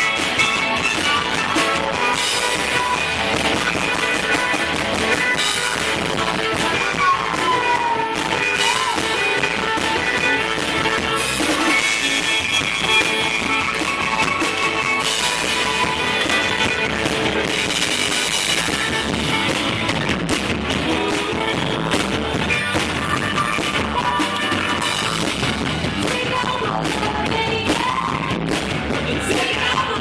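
Live rock band playing at a steady high level: drum kit, electric guitar and a male singer at the microphone.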